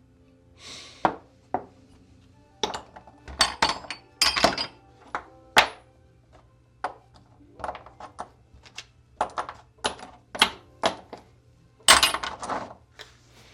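Small metal hardware (cast-iron and aluminum tighteners) clinking and knocking as the pieces are handled and set down: a string of sharp, irregular knocks and clinks, the loudest ones in the middle and one near the end.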